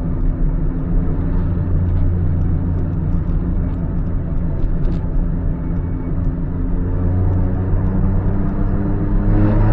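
Car engine idling through an RS-R aftermarket exhaust muffler with its inner silencer fitted, a steady low exhaust note. Near the end the revs begin to climb.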